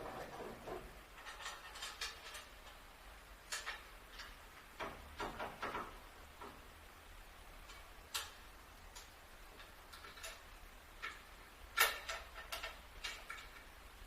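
Irregular light clicks and taps, scattered and uneven, the loudest about twelve seconds in.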